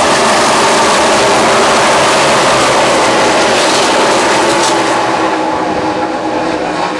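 A pack of NASCAR Cup stock cars with V8 engines racing past at full speed: a loud, dense engine roar that eases off after about five seconds as the field moves away.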